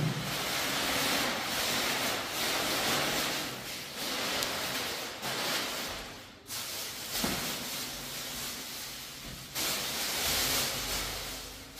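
Thin black plastic sheeting being gathered and crumpled by hand, a loud rustling crinkle that comes in several stretches with short pauses between them.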